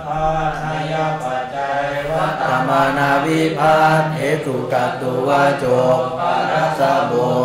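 Voices chanting Pali in a recitation tone, held at a near-steady low pitch while the syllables change: a recited review of Pali verb conjugations.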